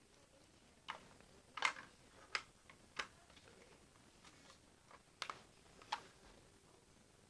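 Faint, irregular clicks and taps, about six of them spread over several seconds, with the sharpest one a little under two seconds in.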